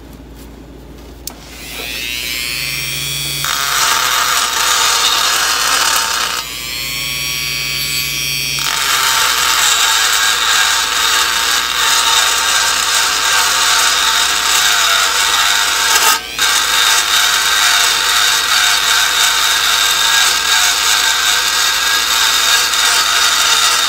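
Handheld rotary tool spinning up about a second in, then grinding inside a runner port of a cast-aluminium Ford GT40 lower intake manifold during porting: a high whine over a steady rasping hiss. A few seconds in the bit comes off the metal and whines freely for about two seconds before grinding again, with a brief break about two-thirds of the way through.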